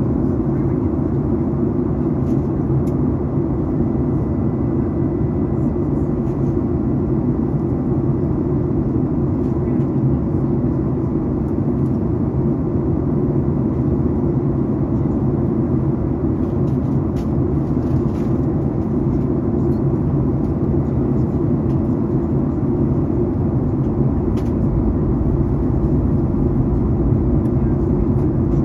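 Steady cabin noise inside a Boeing 737 MAX 8 during descent: an even, low rumble of airflow and the CFM LEAP-1B engines, with a faint steady high tone above it.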